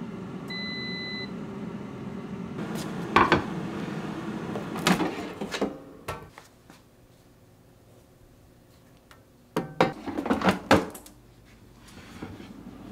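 Air fryer running with a steady fan hum. A short beep comes about half a second in and a few clunks follow; the hum cuts off about six seconds in. A quick run of clattering knocks comes near ten seconds.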